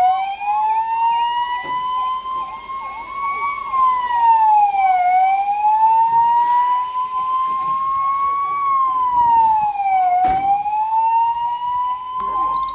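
Emergency vehicle sirens wailing: one siren rising and falling slowly, about once every five seconds, over a second siren yelping fast around it. A sharp knock about ten seconds in.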